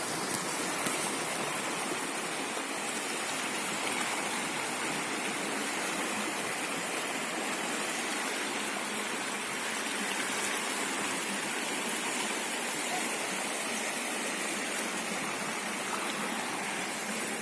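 Steady rush of fast-flowing floodwater in a swollen river.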